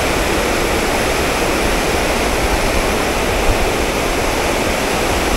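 Steady rushing of river water spilling over a low dam, an even, unbroken noise throughout.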